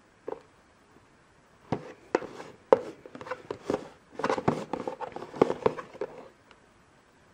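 Hands gripping and turning a cardboard box, fingers knocking and rubbing on the card: one light tap near the start, then a quick run of clicks, knocks and scuffs from about two seconds in until about six seconds.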